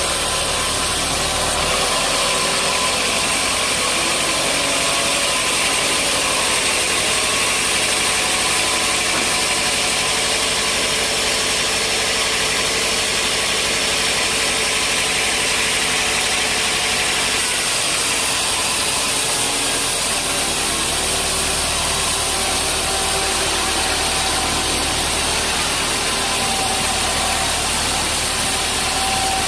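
Sawmill machinery running steadily, a dense mechanical noise whose character shifts about two seconds in and again a little past halfway.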